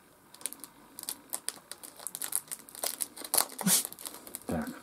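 Packaging crinkling and tearing as a small parcel is unwrapped by hand: a dense, irregular run of sharp crackles starting about a third of a second in.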